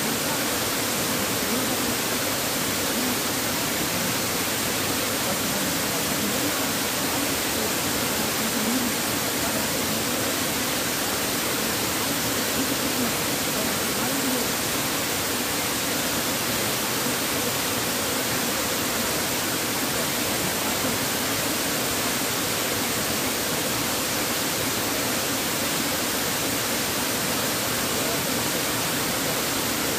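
Steady rushing of a waterfall, an even roar that does not change.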